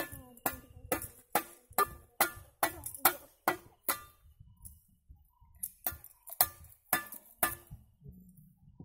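Steel mason's trowel tapping bricks as they are laid: a run of about ten sharp, ringing metallic clinks, two a second, then a short pause and five more.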